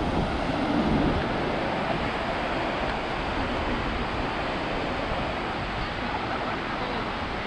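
Steady rush of sea surf breaking along the shore and against the breakwater's concrete tetrapods, mixed with wind on the microphone.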